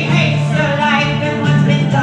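Live acoustic duo: two acoustic guitars played together with a voice singing over them.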